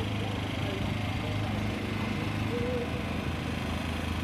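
Small engine running steadily at a constant speed, a low even hum.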